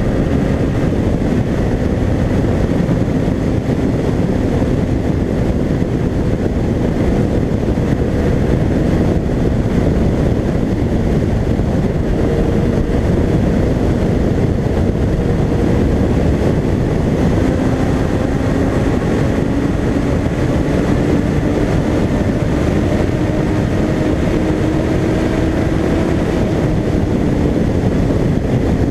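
Honda CBR Fireblade inline-four with an Akrapovic exhaust running at steady motorway speed, buried under heavy wind rush on the bike-mounted camera. The engine note climbs slowly in pitch over the second half as the bike gathers speed.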